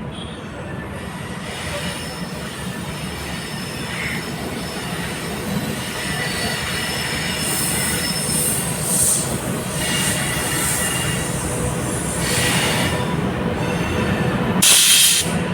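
Coromandel Express passenger train rolling through the station: a steady low rumble of the coaches, growing a little louder, with high-pitched wheel squeals at times and a loud shrill screech near the end.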